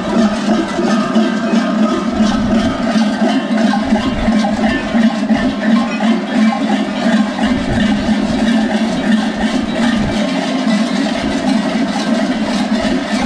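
Many large goat bells clanging together in a dense, continuous jangle. They are strapped around the waists and backs of Skyros carnival Geroi and shaken as the wearers stride and sway.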